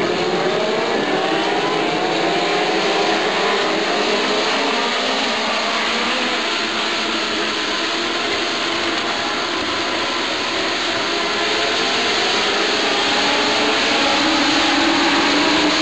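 A pack of INEX Legend race cars running flat out, their Yamaha four-cylinder motorcycle engines at high revs. Several engine notes overlap and slide up and down in pitch as the cars pass and swing through the turn, and the sound grows louder again near the end.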